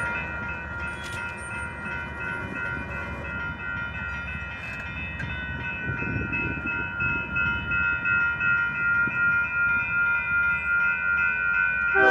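Railroad grade-crossing bell ringing in a steady pulse of about two strokes a second, over the low rumble of an approaching freight train that grows slowly louder.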